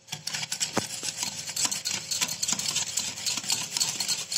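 Metal wire whisk beating sugared curd in a glass bowl: rapid, steady strokes of scraping and clicking against the glass as the curd is whipped toward a creamy consistency.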